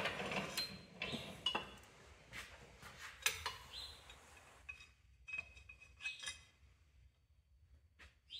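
Metal clinks and clicks of a bar-levered cylinder liner installation tool on a Caterpillar 3406B engine block as a new liner is pressed down into its bore past its O-rings, with a few short high squeaks. The clinks come thick in the first few seconds, then thin out.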